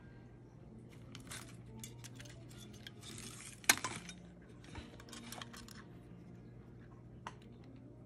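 Light clicks and taps of a soldering iron and copper desoldering braid being handled over a circuit board, with one sharper click about halfway through. A low steady hum runs underneath.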